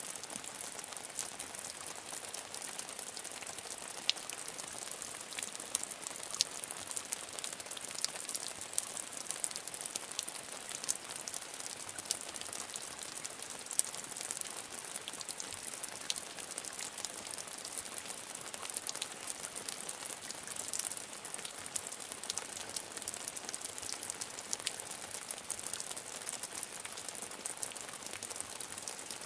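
Medium rain falling steadily, a dense hiss with many small drop clicks and patters on a surface.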